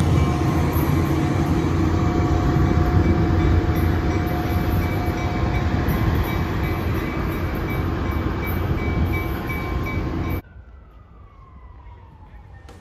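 Diesel locomotive of a Tri-Rail commuter train running as the train pulls out, a heavy engine rumble with a steady whine, growing slowly quieter. About ten seconds in it cuts off suddenly to a much quieter background.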